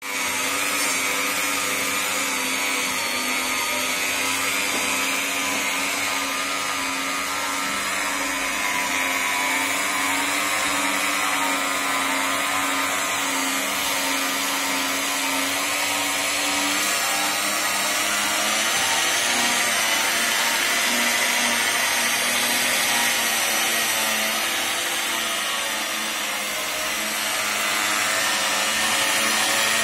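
Homemade dough mixer running steadily, its electric motor whining as the hook kneads dough in a stainless steel bowl. The hum holds one pitch, then wavers slightly past the middle.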